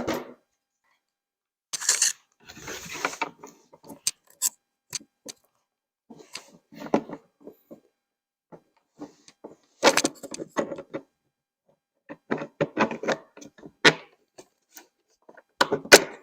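Clusters of small metal clicks, clinks and knocks from parts and hand tools being handled and fitted during assembly, with a short scraping rasp about two seconds in.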